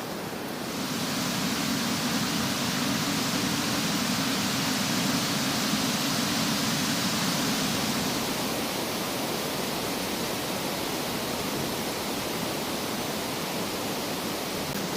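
Strong wind on the microphone: a steady rush of noise that blows harder from about a second in until about halfway through, then eases a little.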